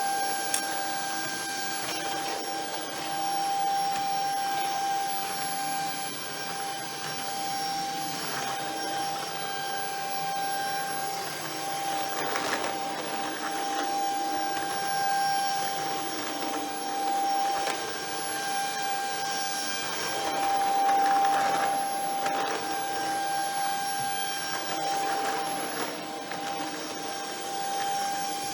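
Shark Ion F80 cordless stick vacuum running with a steady whine. The noise swells and eases every few seconds as it is pushed and pulled across the floor.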